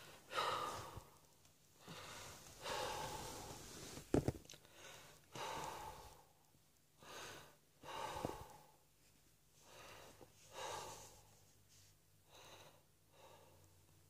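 A person breathing heavily in a series of loud, breathy breaths and gasps, about one every second or so. There is a single sharp thump about four seconds in.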